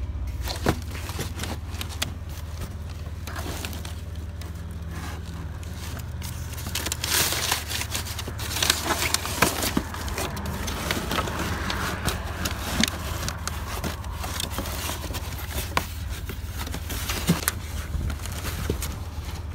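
Hands rummaging through trash in a plastic garbage bin: cardboard and plastic packaging rustling, crinkling and scraping, with scattered short knocks. A steady low rumble runs underneath.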